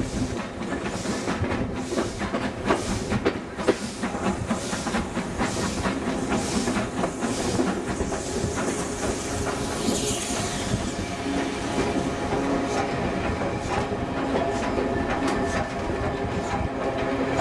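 Steam train heard from an open carriage window while under way, the locomotive's exhaust beating in even chuffs of about two a second that slowly space out. About ten seconds in a burst of steam hiss rises, and after that the chuffing gives way to wheels clicking over rail joints above a steady rumble.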